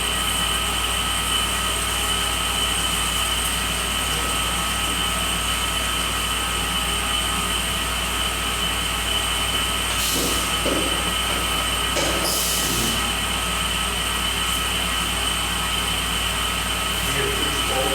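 Tormach Slant-Pro CNC lathe turning a cone profile in 1045 cold-rolled steel: a steady whine of several high tones over a low hum from the spindle and cut. Brief hissing bursts come about ten and twelve seconds in.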